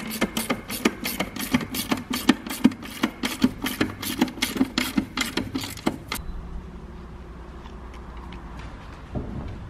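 Hand ratchet clicking steadily, about four clicks a second, as the battery hold-down nut is wound tight. The clicking stops suddenly about six seconds in.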